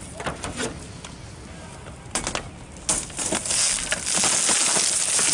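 Cut laminated car windshield crackling and crunching as it is bent and pulled off by hand. First come scattered sharp cracks, then from about three seconds in a dense, loud crackling of breaking glass.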